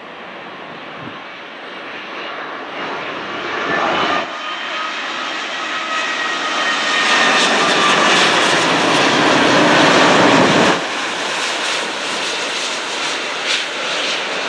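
Boeing 787-9 Dreamliner's Rolls-Royce Trent 1000 jet engines on final approach to land: a jet's rumble with a steady fan whine, growing louder as the plane nears. The sound is loudest about eight to ten seconds in, then drops suddenly about eleven seconds in.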